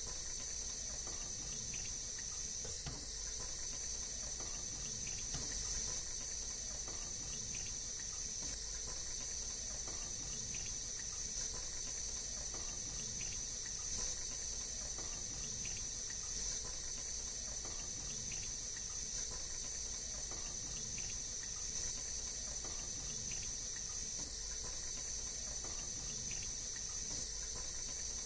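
Thin stream of water running steadily from a Licca-chan toy kitchen's miniature faucet into its small plastic sink: an even high hiss.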